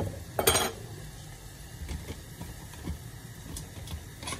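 A short rattle of kitchen utensils about half a second in as a whisk is grabbed, then a steady low hum with a few faint clicks.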